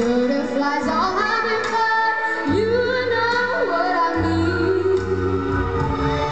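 A boy's solo singing voice holding long notes over backing music, sliding up into some of them, heard from far back in an arena.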